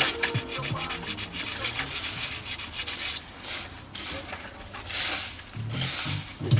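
Sandpaper rubbed by hand in repeated strokes over brown mallee hardwood knife handle scales, shaping the grip.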